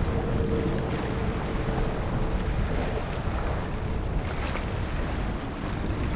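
Wind buffeting the microphone over shallow surf water lapping around a wading angler, a steady rumbling noise, with a faint steady tone in the first half.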